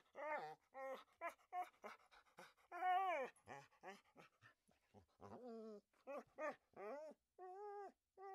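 A dog whimpering and whining in a quick string of short, high calls, about two a second, many rising and falling in pitch.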